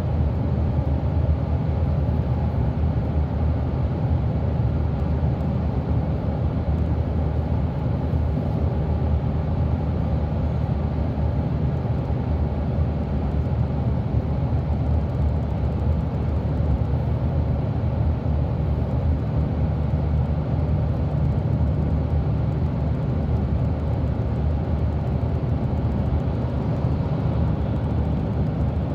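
Steady drone of a Volvo 8500 articulated bus at motorway speed, heard from inside the passenger cabin: a low engine and driveline rumble with tyre and road noise, unchanging throughout.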